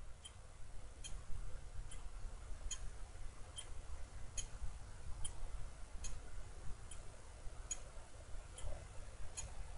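Faint computer mouse-button clicks, a little more than one a second, over a low steady hum.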